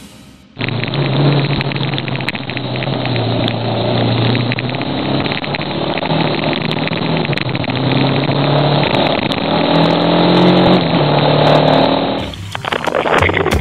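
Motorcycle engine running while riding over a corrugated dirt track, its pitch rising and falling with the throttle, under a steady rattle and rush from the rough surface. It starts about half a second in and cuts off abruptly near the end.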